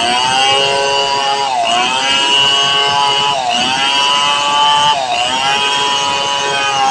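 Large home-built two-stroke chainsaw modelled on the Stihl 070 running at full throttle while rip-cutting a medang log lengthwise. Its engine pitch sags briefly under load three times, about every second and three quarters, and recovers each time.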